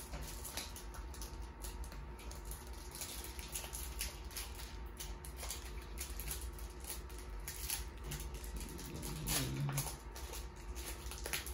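Trading cards being handled and flipped, with irregular rustling, light clicks, and the crinkle of torn foil pack wrappers.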